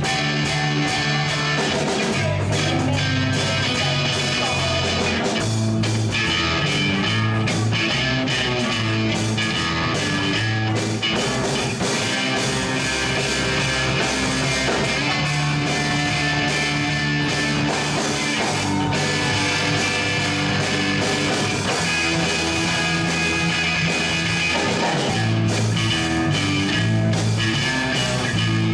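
Live rock band playing: trumpet over electric guitar, electric bass and drum kit.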